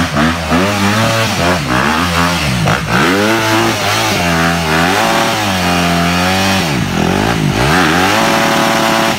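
Yamaha motocross bike engine revving hard, its pitch rising and falling again and again as the rider works the throttle and clutch to drive the bogged-down bike up a steep, rutted mud slope.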